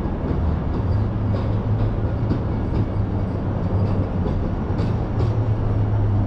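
Car driving along city streets: steady road and engine noise with a constant low hum and a few faint ticks.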